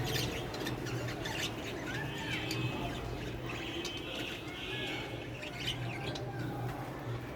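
Lovebirds chirping: a scatter of short high chirps and squeaky calls, with a few sharp clicks, over a steady low hum.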